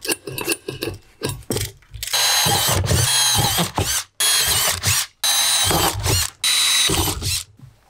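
A few sharp clicks, then a power drill boring pilot holes in steel angle iron in about five runs of roughly a second each, the bit giving a high, wavering squeal as it cuts the metal.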